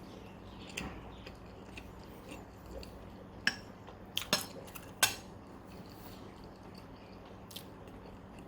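Kitchen utensils and dishes clinking and knocking: a few sharp, separate clicks, the loudest two about three and a half and five seconds in, over a faint steady hum.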